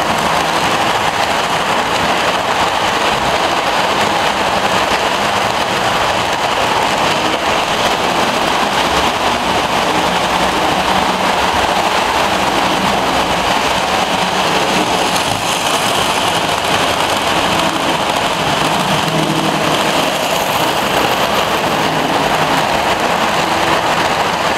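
Lionel model trains running on a layout, with a steady, even rolling noise from the metal wheels on the rails and the motors.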